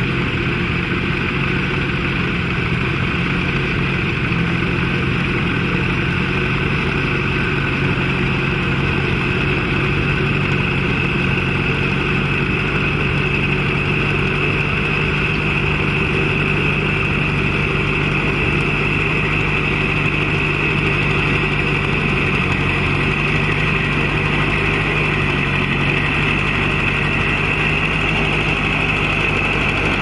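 Vintage tractor engine running steadily under load as it pulls a plough through the ground.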